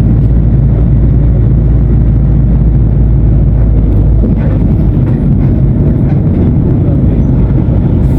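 Mercedes-Benz OF-1519 BlueTec 5 bus's diesel engine running with a loud, continuous low rumble; about halfway through, the steady deep hum turns rougher and more uneven.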